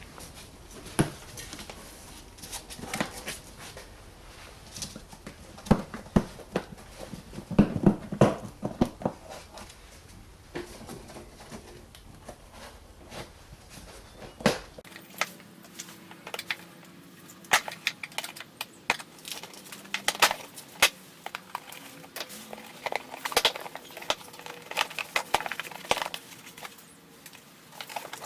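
Plastic wheel-arch dust cover behind a car's front wheel being pulled and worked loose by hand: irregular clicks and knocks of plastic, some sharp and loud, in scattered clusters.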